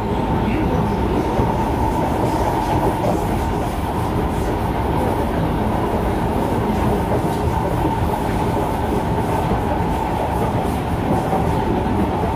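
Inside the motor car of an SMRT Kawasaki C151 metro train running at a steady speed: a dense rumble of wheels and running gear with a steady high motor hum.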